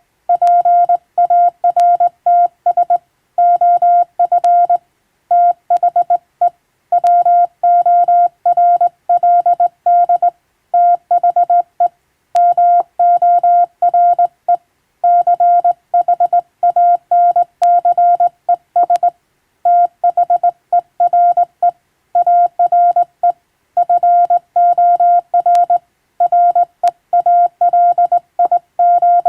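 Morse code sent by hand on a vertical straight key: a single steady beeping tone keyed on and off in dots and dashes, with short pauses between groups.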